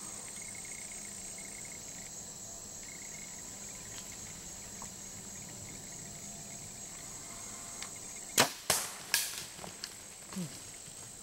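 Insects droning steadily, then a little past eight seconds in a bow shot: three sharp snaps within about a second as the string is released and the arrow strikes a deer, followed by a few fainter rustles.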